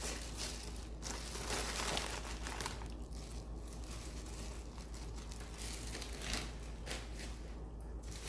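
Crinkling and rustling as shredded cheese is sprinkled by hand over a plate of baked chips, busiest between about one and three seconds in, then quieter.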